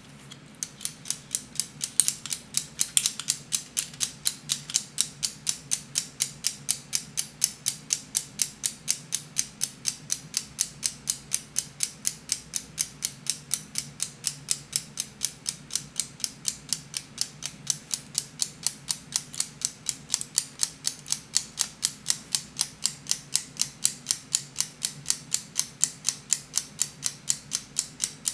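3D-printed PLA flying tourbillon clock mechanism ticking, its plastic escapement beating in an even rhythm of about four sharp ticks a second, starting about half a second in.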